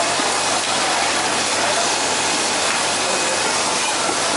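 Steady, loud hiss of a wet-market fish stall, with faint voices in the background.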